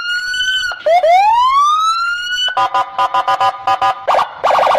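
Toy ambulance's electronic siren: two rising wails, then a rapid pulsing two-tone pattern for the last couple of seconds.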